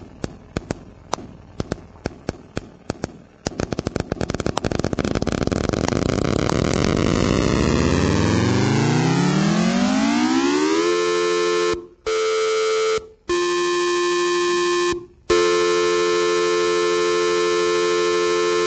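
Two trains of electronic clicks in a 5-against-4 rhythm speed up steadily until the clicks blur into a rising buzz and then into two steady pitched tones a major third apart, very pure-sounding in just intonation. The tones stop briefly three times near the end.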